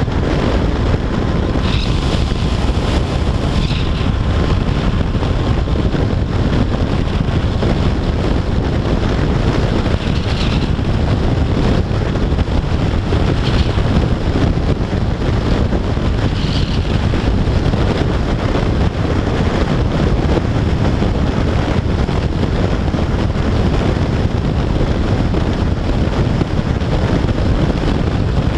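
Steady rush of wind on the microphone of a motorcycle at motorway speed, with the drone of a Yamaha FJR1300AE's inline-four engine beneath it.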